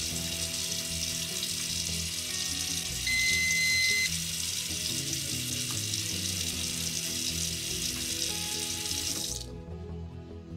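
Kitchen tap running into a sink, a steady hiss that cuts off about nine seconds in when the water is turned off. A brief steady high tone sounds for about a second, three seconds in.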